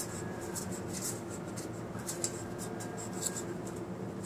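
A knife sawing through the rim of a styrofoam cup of frozen water, cutting away the styrofoam: a quick, irregular series of faint scratchy strokes.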